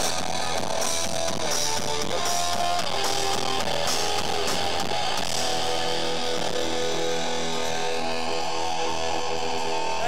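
Live hardcore punk band playing loud, with distorted electric guitar, bass and drums. Cymbals crash through the first half, then the guitars hold ringing chords.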